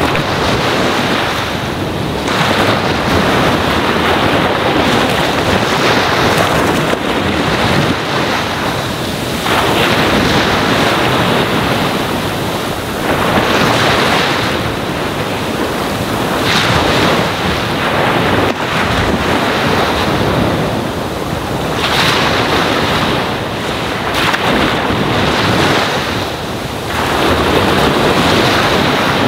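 Ocean surf washing onto a sandy beach: a continuous rush of breaking waves that swells and eases every few seconds.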